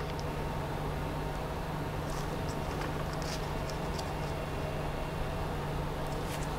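Steady low hum and hiss of background machine or room noise, with a few faint light clicks from gloved hands handling small parts.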